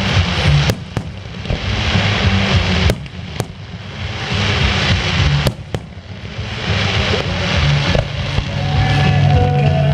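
Aerial fireworks going off: about seven sharp bangs at uneven intervals, with swells of crackling hiss from bursting stars between them.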